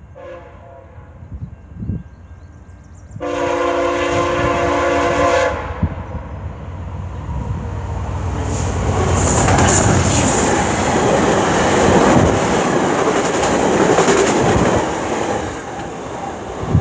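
Via Rail passenger train sounding its horn, faintly at first and then one loud chord about three seconds in lasting some two seconds, as it approaches at speed. The rush and rumble of the train passing at speed then builds to a peak and eases off near the end.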